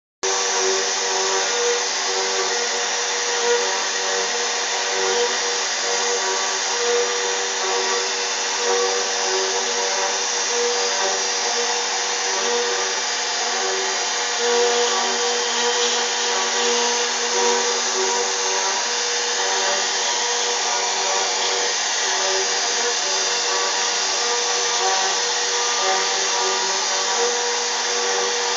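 CNC router spindle running and cutting wood: a steady whine made of several held tones over a hiss, unchanging throughout.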